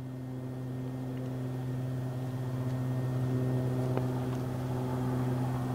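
A steady low mechanical hum, like an engine or motor running, slowly growing louder, with a faint click about four seconds in.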